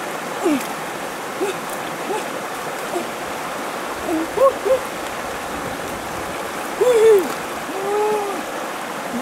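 River water flowing steadily over shallows, an even rushing noise. Several short pitched calls that rise and then fall ring out over it; the loudest come about seven and eight seconds in.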